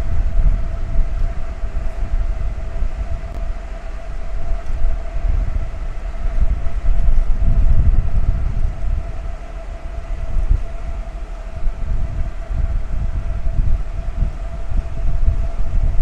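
Shipboard ambience on a passenger ferry's open deck while under way through sea ice: a heavy, gusty low rumble of wind on the microphone and the moving ship, with a steady mid-pitched hum held throughout.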